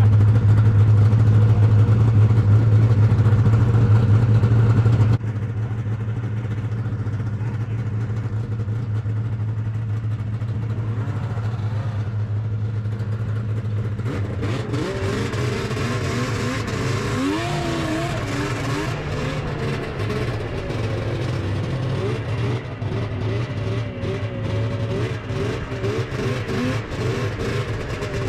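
Two-stroke snowmobile engine running steadily at speed, its sound dropping abruptly about five seconds in. From about halfway through, its pitch rises and falls over and over as the throttle changes on the trail.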